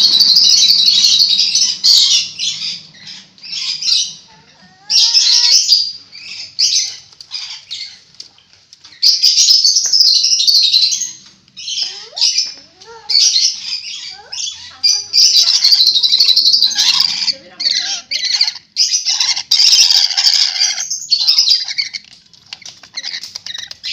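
Rainbow lorikeet screeching: loud, harsh squawks in runs of a second or two, broken by short pauses, with a few thin rising chirps in between.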